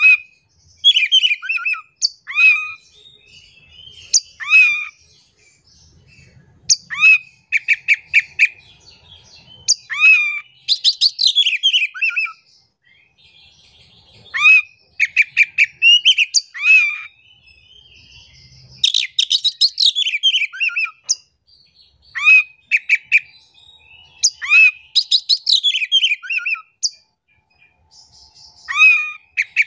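Oriental magpie-robin (kacer) singing in full song: loud phrases of sliding whistled notes and quick runs of repeated notes, one after another with short pauses between them.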